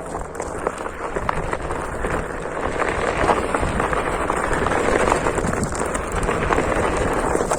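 Steady crunching and rustling of movement over rough, stony ground, with many small clicks, growing louder about two seconds in.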